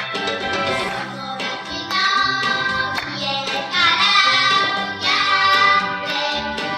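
A song sung by a high voice over instrumental accompaniment, with long held notes near the middle.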